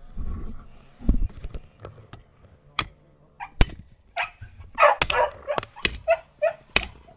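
A dog barking in short yaps over the second half, mixed with several sharp, irregular knocks.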